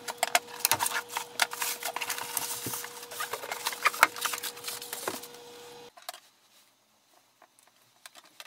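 Cardboard carton, plastic wrap and foam packing rustling, crackling and knocking as a boxed printer is lifted out. A faint steady hum runs underneath, and both cut off abruptly about six seconds in, leaving only a few faint ticks.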